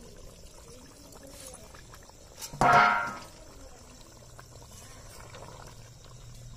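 A metal lid is lifted off a karai of simmering duck curry, with one brief, loud metallic scrape and ring about two and a half seconds in.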